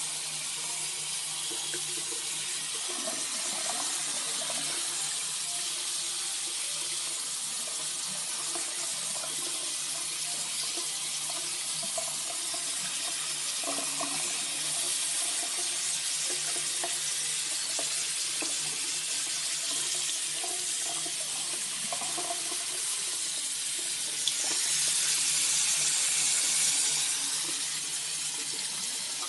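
Steady hiss of running water, like a tap or shower running, with a faint steady hum under it; the rush grows louder for a few seconds near the end.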